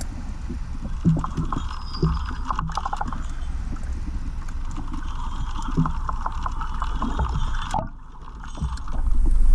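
Underwater sound picked up by a GoPro in its waterproof housing: a steady low rumble of moving water with many small clicks and crackles, dropping away briefly about eight seconds in before rising again.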